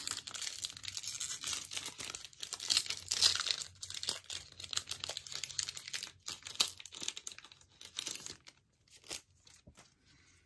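Wrapper of a Topps 2022 Opening Day baseball card pack crinkling and tearing as it is opened by hand. A dense crackle goes on for most of the time, then thins to a few light rustles and clicks over the last couple of seconds.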